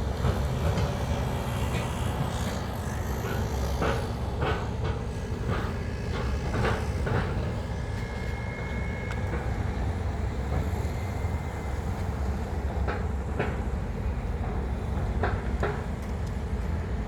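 Ferry engine rumbling steadily, with scattered knocks and clanks over it and a faint high tone about eight seconds in.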